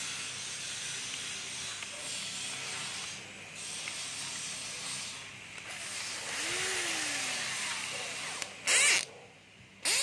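Electric screwdriver drill run in two short bursts near the end, its motor spinning up and down, over a steady hiss of background noise.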